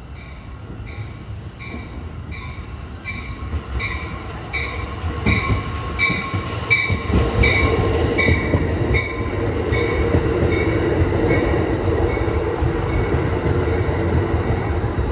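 Amtrak Pacific Surfliner bilevel train pulling into the station, its bell ringing about twice a second. The ringing grows louder, then stops about nine seconds in as the cab car passes, while the rumble of the cars rolling by grows and holds.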